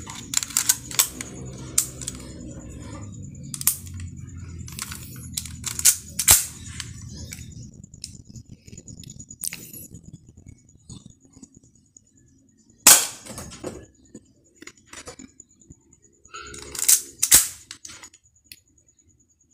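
Airsoft 1911-style pistol being handled and fired: light clicks and clacks as the magazine is seated and the gun readied, then one sharp shot about two-thirds of the way through and two more in quick succession near the end.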